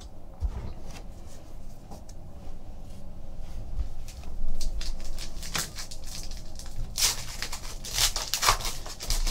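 Foil trading-card pack wrapper being handled and torn open by hand, crinkling and tearing, with two louder crinkling rips near the end.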